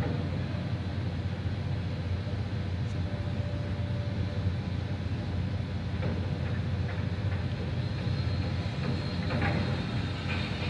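Steady low rumble of construction-site machinery and city traffic, with a few faint knocks about six and nine seconds in.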